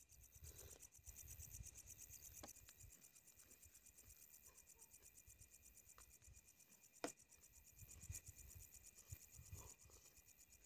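Faint crickets chirping in a steady, fast-pulsing high trill, with one sharp click about seven seconds in.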